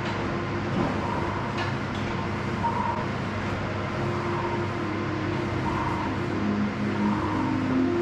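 Steady rushing air noise from a floor fan running, with soft sustained music tones over it.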